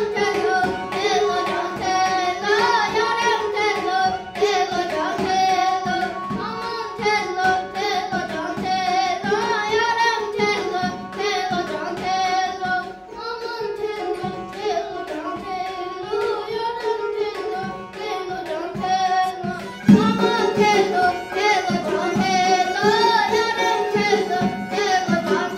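A child singing an Azerbaijani folk song over instrumental accompaniment with a steady drum beat.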